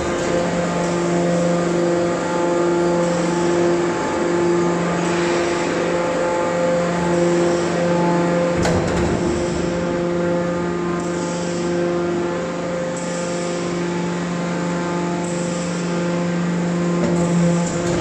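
Hydraulic scrap metal baler's power unit, an electric motor driving the hydraulic pump, running with a steady hum, with a single brief click about halfway through.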